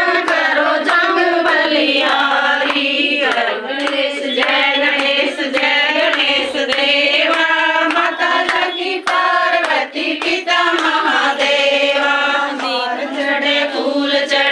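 Group of women singing a Hindu devotional aarti together, clapping their hands in time throughout.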